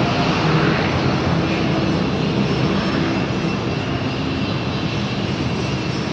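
Large bus engine running with steady road noise.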